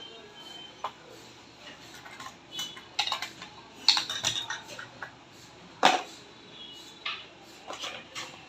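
A series of sharp clicks and clinks of small hard objects being handled, with a cluster about three to four seconds in and the loudest single click about six seconds in.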